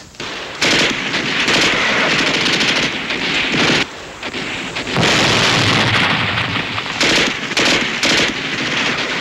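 Sustained machine-gun fire with rifle shots, in long rapid bursts, with a short lull about four seconds in.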